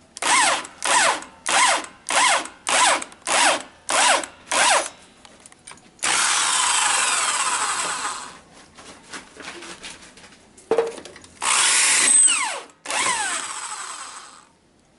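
Corded Bosch electric drill in a drill stand, drilling with quick trigger blips: about eight short bursts in the first five seconds, each spinning up and winding down in pitch. Then a steady run of a couple of seconds, and two more runs near the end, each winding down when released.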